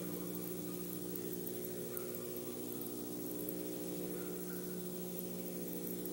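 Steady electrical hum with a background hiss, unchanging throughout: the system noise of a nest-box camera's microphone, with no sound from the owl.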